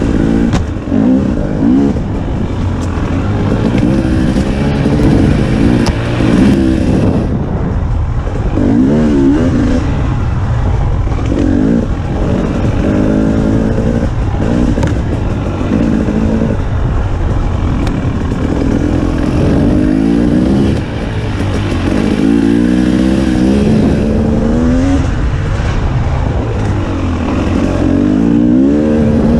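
KTM 300 XC-W TPI dirt bike's single-cylinder two-stroke engine being ridden hard. Its revs climb and drop again every second or two as the throttle is opened and closed.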